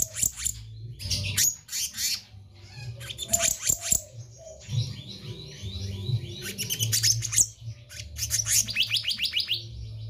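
Black-naped monarch singing in several quick runs of sharp, high, rapidly repeated notes, with short pauses between the runs.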